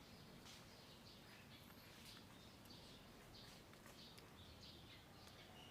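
Near silence: faint background with soft high chirps repeating about twice a second.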